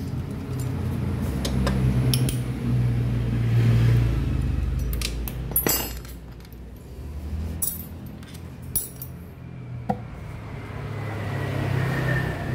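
Sharp metal clinks and knocks, about six of them spread out, as a screwdriver and loose bolts are handled while a cover is pried off a Yamaha Aerox scooter engine case, over a low rumble that swells twice.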